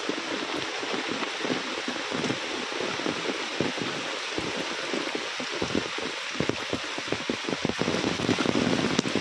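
Heavy rain falling steadily, with a dense patter of close drops striking all through.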